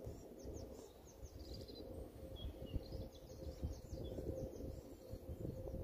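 Small birds chirping: quick series of short, high, falling notes with a brief trill, over a low outdoor rumble.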